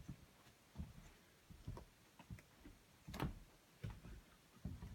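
Faint, irregular clicks and taps in a small room, one louder tap about three seconds in.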